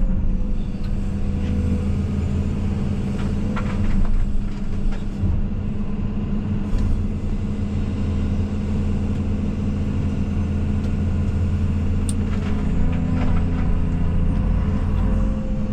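Case CX220E excavator's diesel engine running steadily, heard from the operator's cab, with a few sharp clicks and knocks from the machine.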